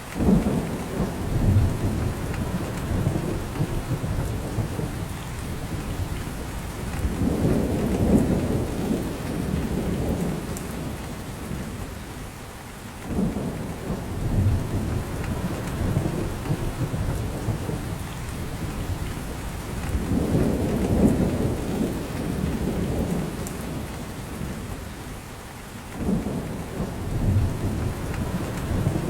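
Steady rain falling through a spruce forest, with drops pattering down from the branches. Low rolling rumbles swell up about every six to seven seconds, a few beginning suddenly, and fade again under the rain.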